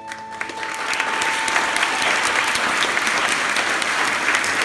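An audience applauding, with one pair of hands clapping close to the microphone. The clapping swells over the first second while the last held note of a piano, cello, violin and clarinet quartet fades out.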